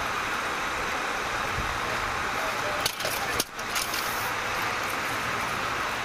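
Steady engine noise of vehicles idling at an emergency scene. A couple of sharp metallic clicks come about three seconds in.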